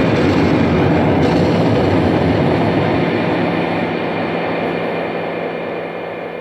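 Loud, steady rumbling noise, heaviest in the low range, like a passing train, fading out gradually over the last few seconds; an intro sound effect.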